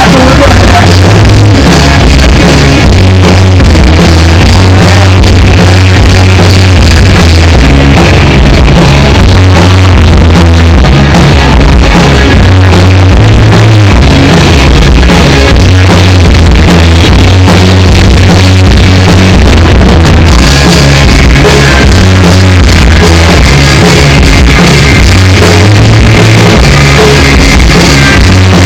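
Loud rock music with bass, guitar and drums, heavily compressed and distorted; the mix changes about twenty seconds in.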